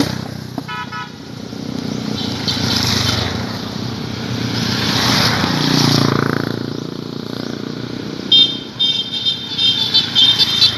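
Motorcycles riding past one after another, their engine noise swelling and fading as each goes by. Horns beep in quick repeated toots about a second in and again from about eight seconds in.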